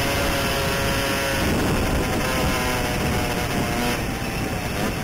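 Enduro motorcycle engine running at a steady pace on a dirt track, with wind noise on the helmet-mounted microphone; the engine note and level ease slightly about four seconds in.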